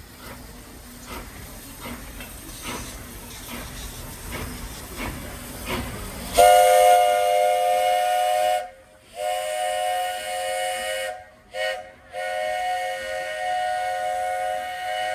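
Steam locomotive working, its exhaust chuffing in an even beat that grows louder, then its chime whistle sounding a chord of several tones in four blasts, long, long, short, long: the grade-crossing signal. The locomotive is Walt Disney World Railroad No. 2, a 1928 Baldwin.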